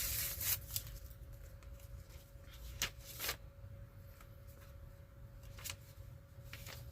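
Paper envelope being opened and handled by hand: short bursts of paper rustling and crinkling, the loudest right at the start, with more about three seconds in and near the end.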